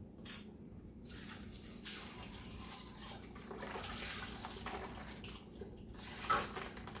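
Chicken broth pouring from a carton into a large stock pot of cut potatoes, a steady splashing flow, with a short knock near the end.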